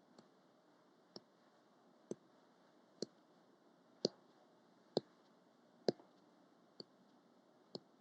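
Faint finger taps on the back of the skull, about one a second, eight in all, louder in the middle of the run and softer at either end. This is the ear-drumming self-massage for blocked ears and tinnitus: the index finger, laid on the middle finger, is flicked down onto the skull while the palms press over the ears.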